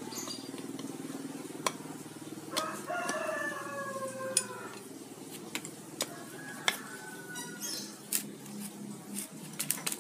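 A rooster crows once in the background, one call of about two seconds starting between two and three seconds in. Throughout, sharp metal clicks and knocks come from a breaker bar and socket working a very tight bolt on a Yamaha Vixion engine's water pump cover, over a steady low hum.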